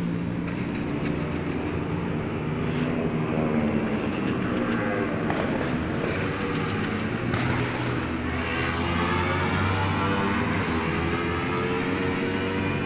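Road traffic: motor vehicle engines running steadily, their pitch shifting as vehicles pass.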